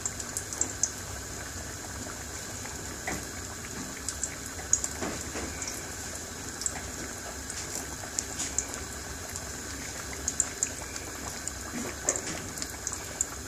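A pot of red lentils boiling hard: irregular bubbling pops over a steady hiss.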